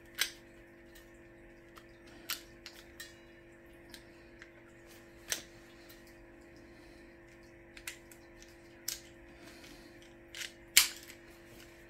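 Small tools and engine parts handled on a workbench: a few sharp clicks and knocks spread out, the loudest near the end, over a faint steady hum.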